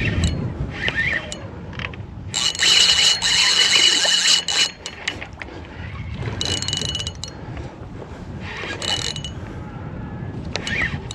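Fishing reel's drag buzzing as a hooked barramundi pulls line. It comes in three runs: a long one of about two seconds a couple of seconds in, then two shorter ones.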